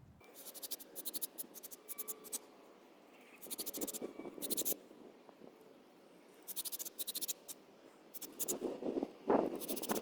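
Metal wire brush scrubbing the threads of a brake caliper bolt in quick back-and-forth scratchy strokes, coming in four or so bursts with short pauses between them.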